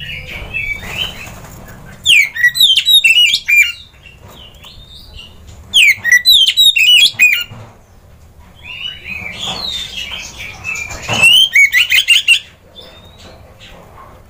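Oriental magpie-robin (kacer) singing: three loud bursts of quick, sweeping whistled phrases about two, six and eleven seconds in, with softer calls between them.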